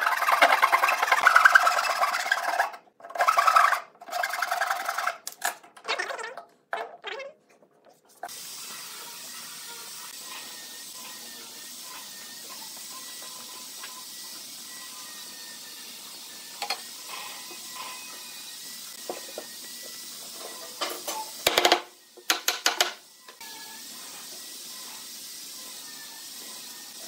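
A wide steel blade scraping along the face of a pine workpiece in repeated rasping strokes, which stop about eight seconds in. After that comes a steady hiss with a few faint ticks and a brief cluster of scraping strokes a little past two-thirds of the way through.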